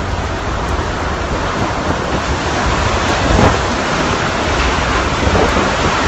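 Hurricane wind and heavy rain: a dense, steady rush with a low rumble, a stronger gust about three and a half seconds in.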